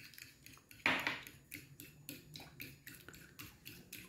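A metal fork stirring a liquid egg-and-milk batter in a ceramic plate, with light repeated clinks and scrapes against the plate. The strongest clink comes about a second in.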